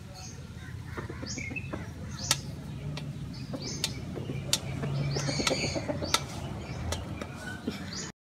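Hens pecking food from a stainless steel bowl, their beaks striking the metal in sharp, irregular clicks, while small birds chirp in short high notes over a low steady hum. The sound cuts off suddenly near the end.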